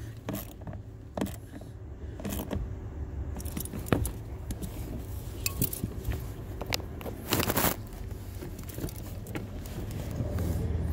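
Scattered metal clinks and clicks of hand tools working the blower motor's 5.5 mm mounting bolts under the dashboard, with a short rattling burst about seven and a half seconds in, over a low steady hum.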